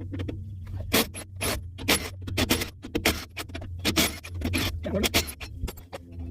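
Irregular clanks and scrapes of metal sockets and tools being handled and rummaged in a socket case, about a dozen sharp knocks in a few seconds, over a low steady hum.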